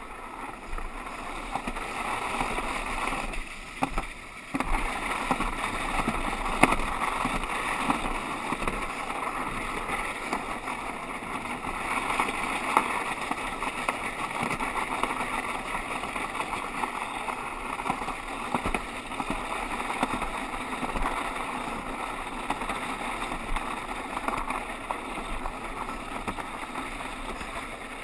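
Alpine-slide sled running down the track: a steady rushing scrape with scattered clicks and knocks. The noise drops away briefly about four seconds in.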